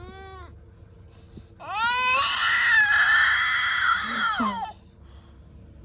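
A 17-month-old baby crying: a short whimper, then one loud wail of about three seconds that slides down in pitch and breaks off.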